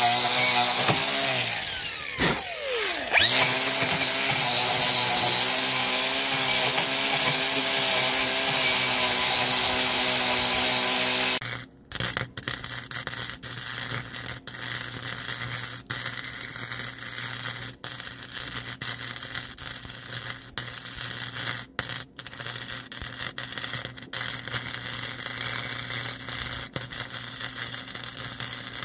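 Electric angle grinder running, grinding the steel hitch mount clean for welding; its motor slows and picks up again about two to three seconds in. About eleven seconds in the grinder stops and electric arc welding takes over: a steady crackling sizzle with irregular sharp pops.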